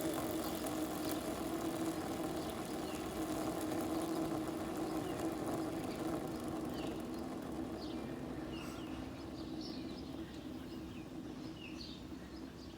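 Skateboard wheel on good bearings spinning freely after a hand flick: a smooth, steady whir that slowly fades. Birds chirp in the background from about halfway in.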